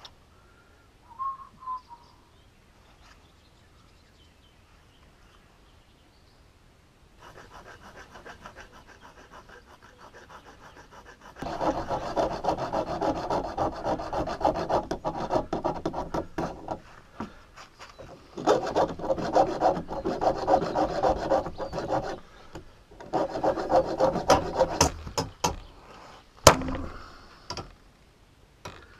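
A steel rod being filed by hand with a Leatherman multi-tool's file: quick rasping strokes, faint at first about seven seconds in, then louder in three long runs with short pauses between them. A few sharp clicks near the end.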